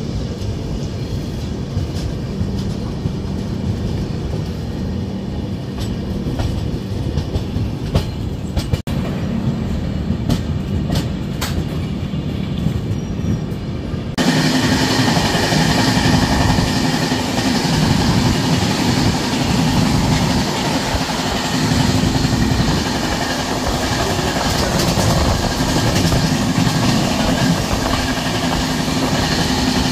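Passenger train running on the rails, heard from aboard the moving coach, with scattered clicks of the wheels over rail joints and points in the first half. About halfway the sound steps up abruptly to a louder, hissier rush of wind and rail noise at speed.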